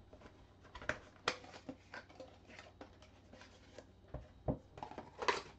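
Cardboard trading-card box being handled and opened and its metal tin slid out: scattered scrapes and rustles with a few sharper knocks.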